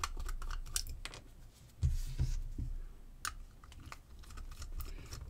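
Screwdriver backing small screws out of an LED bulb's plastic base: a run of light clicks and scrapes from the tip and from handling the bulb, with a few low knocks about two seconds in.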